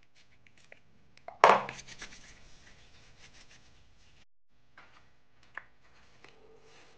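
A small pump spray bottle spritzing once onto a palm: a sudden hiss about a second and a half in that trails off. Faint hand rubbing follows, and a light tick comes near the end.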